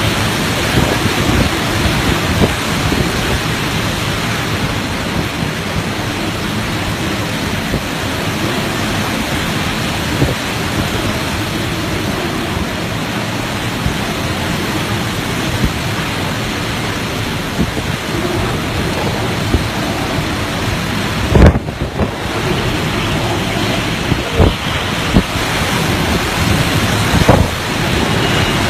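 Typhoon Mangkhut's hurricane-force wind and driving rain in a loud, unbroken rush. Several sharp thumps come in the last third.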